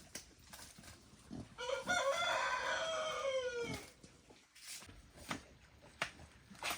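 A rooster crowing once, a call of about two seconds that drops in pitch at its end. Scattered short knocks and clicks come before and after it.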